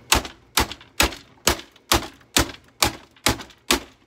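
A steady run of nine hard blows, about two a second, most likely a hammer striking wood while trying to knock a sturdy piece loose.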